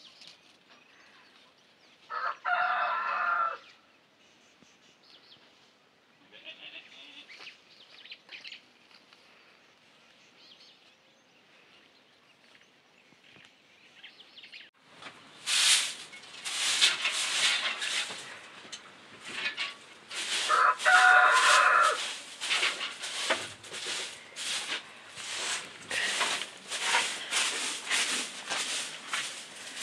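A rooster crowing twice, each crow lasting about a second and a half, the second coming about twenty seconds after the first. From about halfway through, a fast run of rough scraping noises goes on, louder than the crows.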